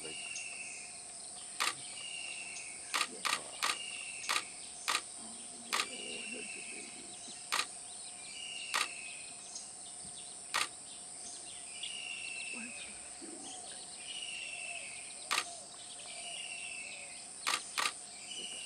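Forest ambience: a steady high insect drone, with a bird repeating a short falling call every couple of seconds. Sharp single clicks cut in at irregular moments, a dozen or so, louder than the background.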